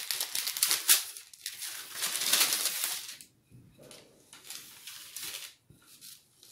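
Wooden rolling pin rolling out shortcrust pastry on baking paper, the paper rustling and scraping against the table with each stroke. The strokes are loud for about the first three seconds, then fainter and more spaced out.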